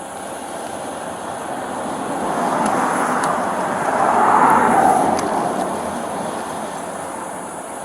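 A vehicle passing by: a rushing noise that swells to a peak about four to five seconds in, then fades away.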